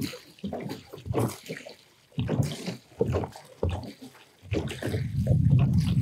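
Water poured from a plastic jerrycan onto the stones and gravel of a gabion wall, splashing in uneven spurts. About four and a half seconds in, a louder steady low rumble sets in over it.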